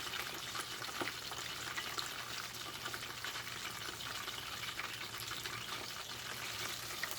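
Bratwursts deep-frying in hot oil: a steady sizzle with fine crackling.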